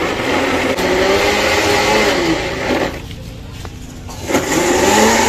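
Electric blender running on a fruit shake, its motor pitch sagging and rising as the load changes; it eases off about three seconds in and picks up again a second later.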